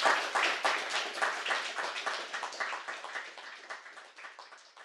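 Audience applauding, the clapping gradually thinning out and dying away near the end.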